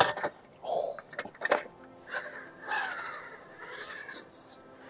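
RC rock crawler with a Hobbywing Fusion Pro motor grinding up slick granite: short scuffs and scrapes of its tyres slipping on the rock, with a faint motor whir under them.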